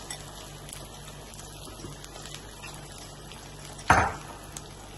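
Beaten eggs cooking in a nonstick frying pan with a faint, steady sizzle, and a single loud knock about four seconds in.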